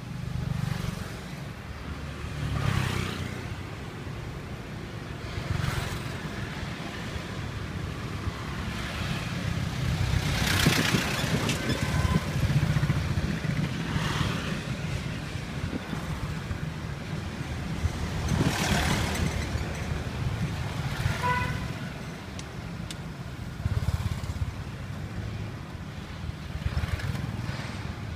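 Street traffic: a steady low engine rumble with motorbikes and cars swelling past every few seconds. A brief horn toot about two-thirds of the way through.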